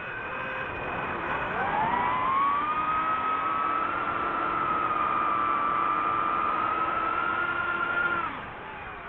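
DJI FPV drone's motors whining: the pitch rises about a second and a half in as the throttle comes up, holds a steady high whine, then drops off near the end.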